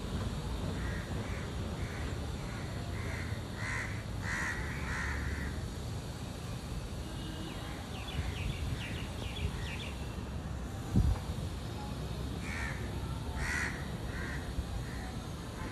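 A crow cawing in a run of about eight calls, then three or four more near the end. A brief high chatter comes in the middle, and a single dull thump about two-thirds through is the loudest sound, over a steady low background rumble.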